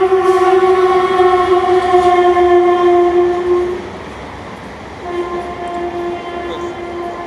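WAM-4 electric locomotive's horn sounding a long steady blast that stops about three and a half seconds in, then a second blast starting about five seconds in, over the rumble of the passing train.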